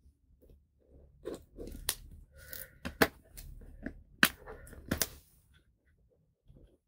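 Plastic shrink wrap on a phone box crackling and crinkling as fingers pick at it and try to tear it open: a run of sharp, irregular crackles that stops about a second before the end.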